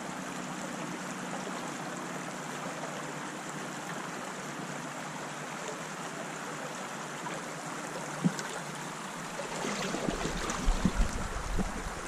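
River current running over a riffle, a steady rushing of water. A sharp knock comes about eight seconds in, and a few low bumps follow near the end.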